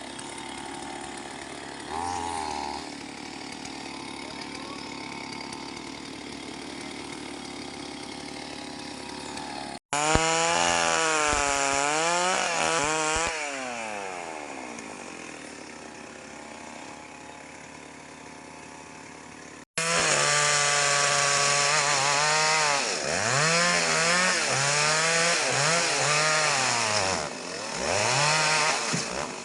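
STIHL MS 381 two-stroke chainsaw cutting mahogany. It runs steadily for the first third. After that its pitch rises and falls repeatedly as the throttle is opened and eased off, loudest in the last third.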